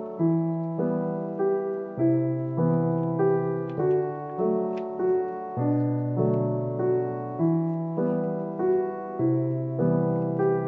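Background piano music, with notes struck at a steady, even pace of a little under two a second.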